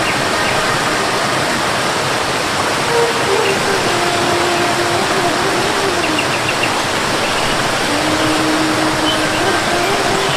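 Steady rushing of flowing water, with a few short, faint bird chirps and a soft, drawn-out low tone that steps slowly up and down in pitch.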